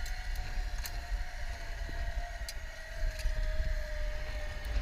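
Wind buffeting a helmet-mounted camera's microphone, a rough low rumble, with a steady whine that slowly sinks in pitch and a few light clicks.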